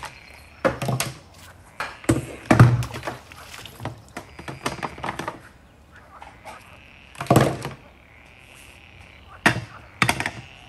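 Heat mats and their plastic-covered power cords being set down and arranged on a wooden table: a string of knocks and rustles, loudest about two and a half seconds in and again about seven and a half seconds in.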